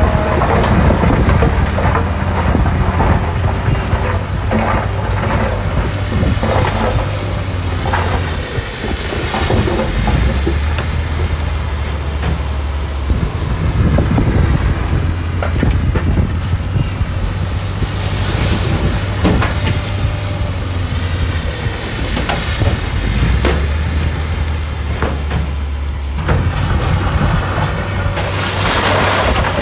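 Heavy diesel earthmoving machinery running steadily under load, with frequent clanks and rattles of stone being pushed and dumped, and a harsher rush of noise near the end.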